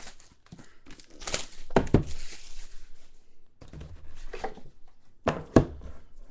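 Plastic shrink wrap being torn and crinkled off a sealed trading-card box, with a few hard knocks as the box is handled on the table, the loudest about five and a half seconds in.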